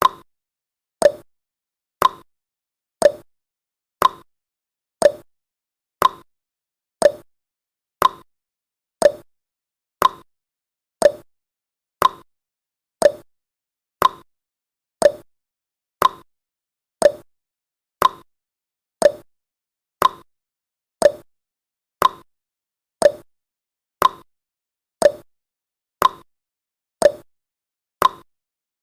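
Countdown timer's clock-tick sound effect: one short, sharp tick every second, each dying away quickly, at a steady pace.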